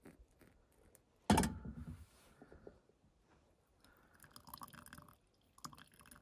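Hot water trickles from a kettle into a pour-over coffee brewer on an enamel mug, with one sharp knock about a second in. From about the middle, brewed coffee drips and crackles as the brewer is lifted off the mug.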